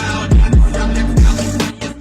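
Hip hop backing track with rapping over deep, falling 808 bass-drum hits.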